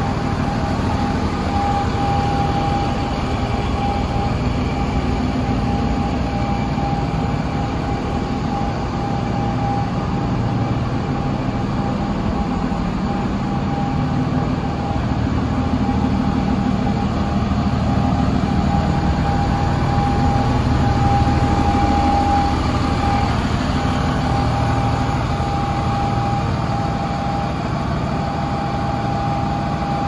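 DAF LF230 box truck's diesel engine idling steadily: a low, wavering rumble with a constant high whine over it.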